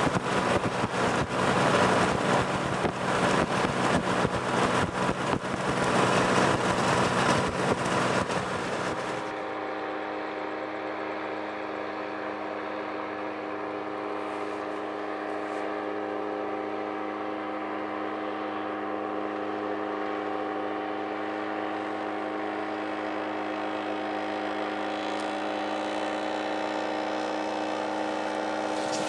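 Powered paraglider trike's engine and propeller running, heard first from on board, loud and mixed with wind buffeting on the microphone. About nine seconds in the sound changes to a steady drone of the same motor heard from the ground, its pitch rising slightly near the end.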